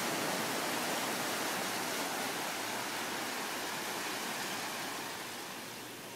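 Small waves washing up a sand beach, a steady wash that slowly fades.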